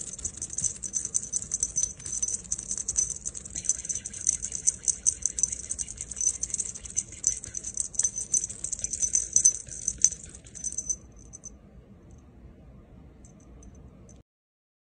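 A small jingle bell shaken rapidly and continuously in a dense, high, tinkling rattle. It stops abruptly about eleven seconds in, leaving a few faint jingles.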